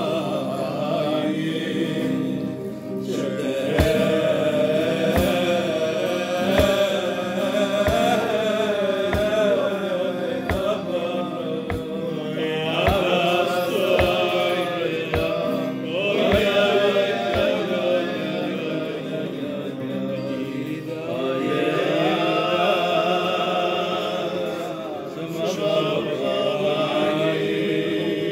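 Men singing a Jewish song together to acoustic guitar accompaniment. Through the middle, a low thump lands on each beat, a little less than once a second.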